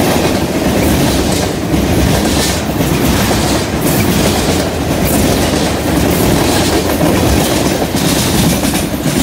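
Freight train's tank cars and a boxcar rolling past close by: a steady rumble of steel wheels on rail, with a clack about once a second as the wheels pass over the track.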